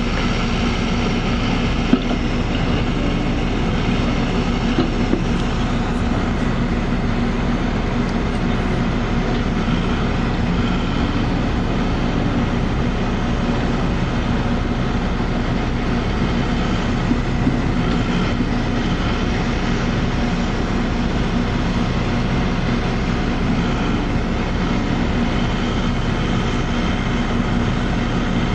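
Caterpillar backhoe loader's diesel engine running steadily under load while the machine compacts backfilled soil in a trench, with a few short knocks.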